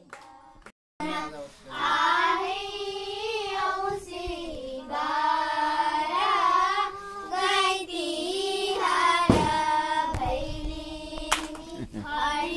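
Girls' voices singing a Tihar Bhailo song, holding long, wavering notes. The singing comes in about a second in.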